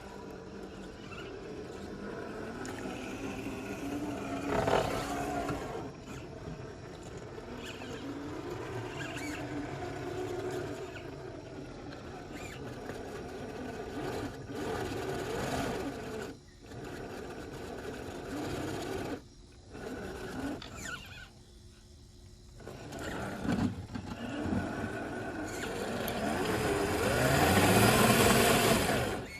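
Traxxas TRX4 RC crawler's 550 brushed motor and geared drivetrain whining as it crawls, the pitch rising and falling with the throttle. It stops briefly a few times and runs loudest near the end.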